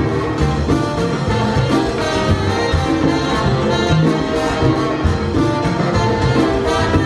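Live salsa band playing, with trumpets over a steady percussion rhythm.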